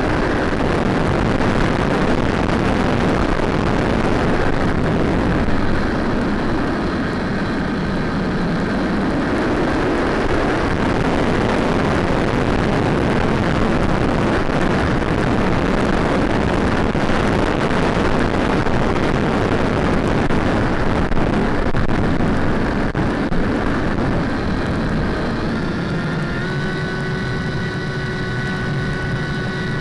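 Steady rushing noise of a model aircraft in flight, wind and motor noise picked up on board, with a few steady whining tones coming in near the end.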